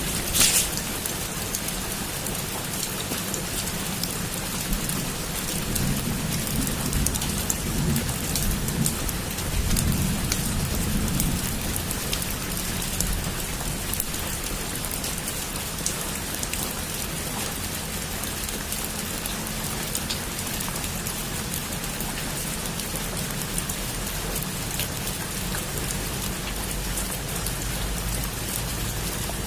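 Heavy rain falling steadily on a rooftop. There is a sharp crack right at the start, and a low rumble of thunder from about six to eleven seconds in.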